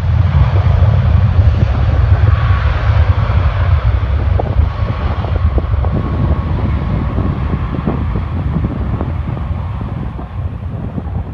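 Jet airliner's engines running as it passes, swelling sharply at the start, loudest in the first few seconds and slowly fading, with a faint steady whine. Strong wind buffets the microphone throughout.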